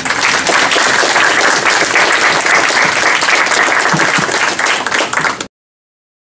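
Audience applauding at the end of a lecture, steady clapping that cuts off abruptly about five and a half seconds in.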